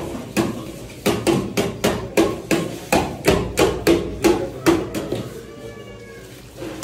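Rhythmic sharp knocking in a kitchen, about three strikes a second, stopping a little after two-thirds of the way through. A faint high wavering tone follows briefly once the knocking stops.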